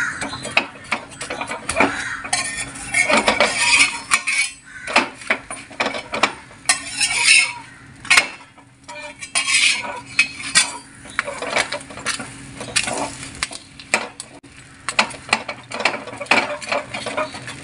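Steel spatula pressing and scraping a roti against a hot griddle: irregular metal scrapes and clicks on the pan, with light sizzling from the cooking roti.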